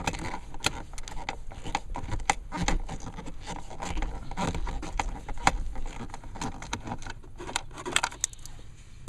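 Plastic glove box parts being handled and fitted: many irregular sharp clicks and taps with scraping and rustling between them.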